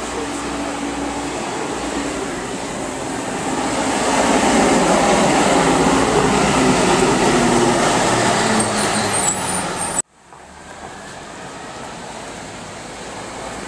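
CNG-powered city transit bus driving past at close range, its engine hum and tyre noise swelling to a peak as it goes by. About ten seconds in, the sound cuts off abruptly and gives way to quieter street traffic as another bus approaches.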